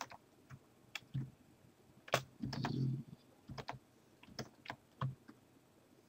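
Computer keyboard keys pressed in scattered single clicks, about ten in all at uneven intervals, with a short clatter about halfway through.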